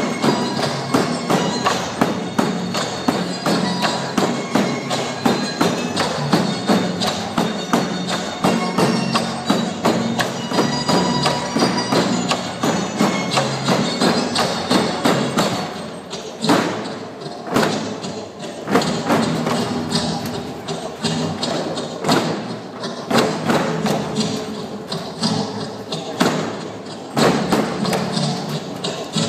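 Bamboo poles clapped together and knocked on the stage floor in a steady rhythm for a bamboo pole dance, over backing music.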